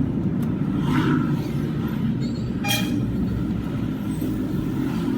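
Toyota Hilux pickup on the move, heard from inside the cab on off-road tyres: a steady low rumble of engine and road noise. A brief high-pitched tone sounds about two and a half seconds in.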